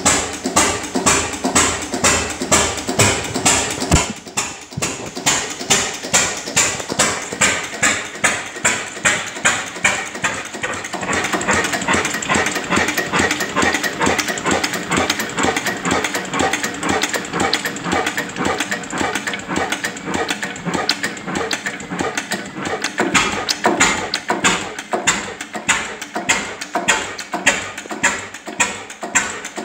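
National KB 13 bhp single-cylinder hot-bulb oil engine running steadily, with a regular beat about twice a second.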